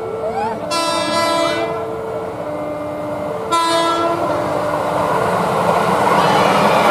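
KRL electric commuter train sounding its horn in two blasts, one about a second in and a shorter one about halfway, while its wheel rumble on the rails grows louder as it nears. A two-tone warning signal alternates about once a second underneath.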